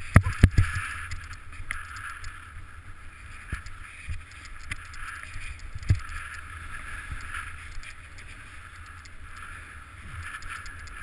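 Steady swishing hiss of snow sliding underfoot on a fast descent through powder, over a low wind rumble on the microphone. A few sharp knocks come in the first second and another about six seconds in.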